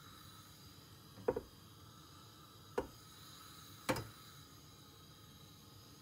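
Three short knocks of a metal tava against the gas hob's cast-iron pan supports as it is held upside down over the burner: a double knock a little over a second in, another about a second and a half later, and a last one about a second after that, over a faint steady hiss.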